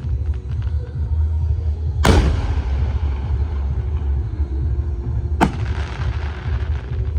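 Firework shells going off in a display: two sharp bangs about three seconds apart, each followed by a fading hiss, over a steady low rumble.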